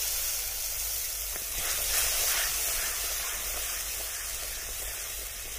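Yogurt sizzling and hissing in hot oil with cumin and carom seeds in a clay pot, the sizzle slowly dying down as it is stirred with a wooden spatula.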